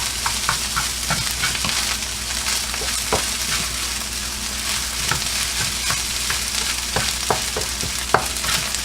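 Fried rice with egg and soy sauce sizzling in a hot pan while it is stirred continuously, the spatula scraping and knocking against the pan at irregular moments over the steady frying hiss.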